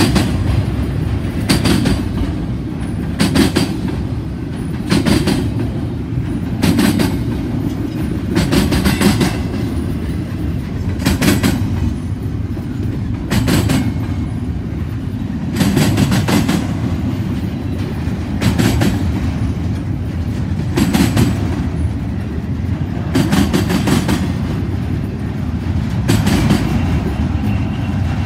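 Double-stack intermodal freight cars rolling past with a steady low rumble. A sharp clickety-clack of wheelsets over the rail joints comes every one to two seconds.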